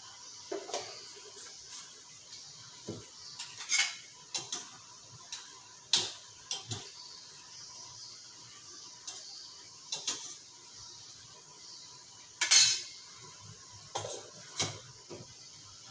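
Kitchen clatter: metal pots, pans and lids being handled on a gas stove, a scatter of short clinks and knocks with the loudest about twelve and a half seconds in. A faint steady hiss runs underneath.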